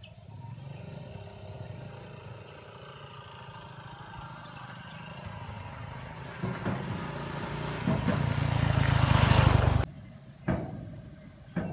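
A motor vehicle's engine running and growing steadily louder, as if drawing near. It cuts off suddenly near the end, after which come a couple of sharp clicks.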